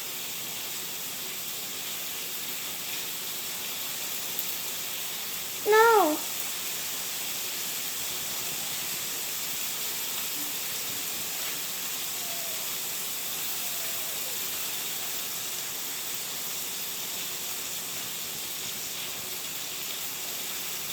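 A steady, even hiss, with a brief voiced sound that rises and falls about six seconds in.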